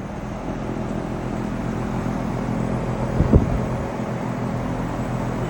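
Bosch AC outdoor unit running with a steady mechanical hum that swells over the first second. There is a brief low thump about three seconds in.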